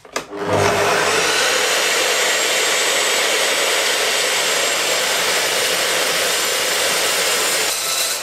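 Bosch GCD 12 JL carbide-blade metal cut-off saw starting up and cutting through a wide aluminium flat bar, a loud steady rasping whine. A couple of clicks come first, the motor is up to speed about half a second in, and the sound eases slightly near the end.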